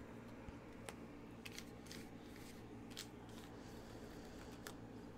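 Faint, scattered clicks and snaps of tarot cards being gathered and handled in the hands, over a low steady hum.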